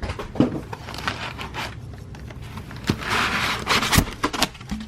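Handling a large cardboard box and its packing: several knocks and clicks, the sharpest about four seconds in, with a scraping rustle just before it.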